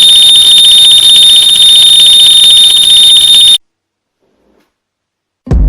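A very loud, piercing, steady electronic alarm tone like a smoke-alarm sound effect, cutting off abruptly about three and a half seconds in. After a short silence a sudden loud thump comes right at the end.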